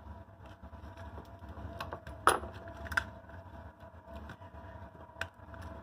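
Small plastic clicks and rattles as the shell of a Tyco GP20 HO-scale model locomotive is worked off its chassis by hand, its stiff tabs stuck in place; one sharp click about two seconds in, and a few lighter ones after.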